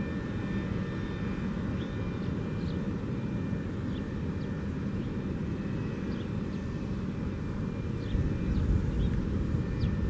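Federal Signal 3T22 three-tone rotating warning siren on test, its chord faint through most of the stretch and coming back near the end as the head turns. A steady low rumble dominates, with short high chirps scattered throughout.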